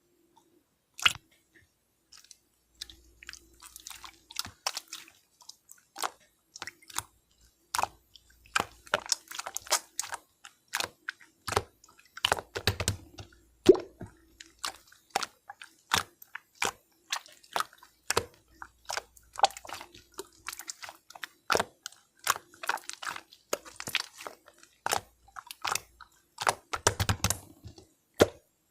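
An irregular run of sharp crunching clicks, often several a second, some much louder than others, over a faint steady hum.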